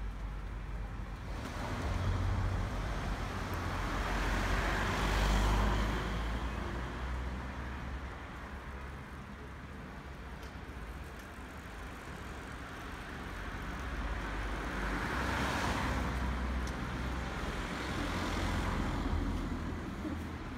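Road traffic: cars passing by one after another, their tyre and engine noise swelling and fading three times, over a steady low rumble.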